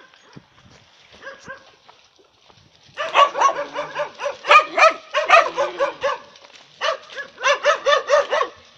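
Dogs in kennel pens barking: faint at first, then loud, rapid, overlapping barks from about three seconds in, with a brief lull a little past the middle.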